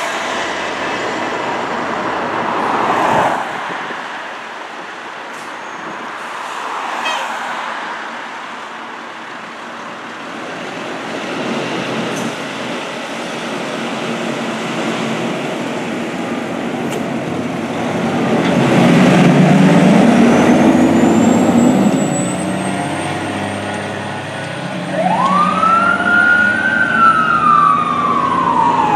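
Pierce fire engine's diesel engine running and pulling away, loudest about two-thirds of the way through. Near the end its siren comes in, rising quickly to a peak and then winding slowly down.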